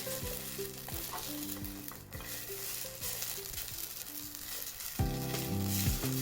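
Food sizzling and frying in a pan over a wood-burning camp stove, a steady hiss with small pops, under background music that grows louder about five seconds in.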